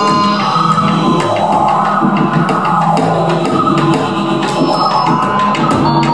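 Live improvised music: layered held tones and drones with a scatter of sharp percussive clicks and taps over them.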